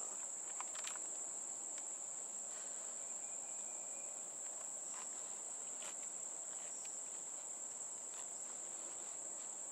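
Steady high-pitched chorus of insects chirring, with a few faint clicks.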